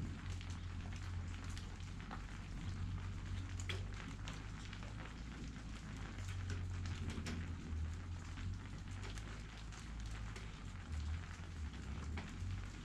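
Rain falling, with many single drops clicking close to the microphone over a steady hiss and an uneven low rumble of wind underneath.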